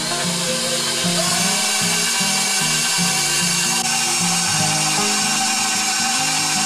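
Electric stand mixer motor running steadily, its paddle beating bread dough in a steel bowl, with a high whirring hiss that comes on at the start. Background music with a slow stepping melody plays underneath.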